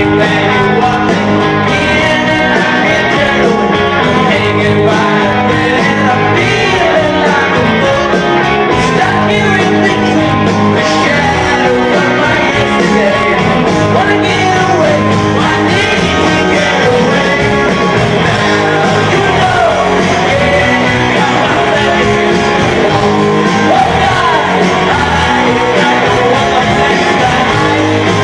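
A rock band playing loudly live, with electric guitar and a full band sound in a stretch without clear lyrics, and occasional vocals.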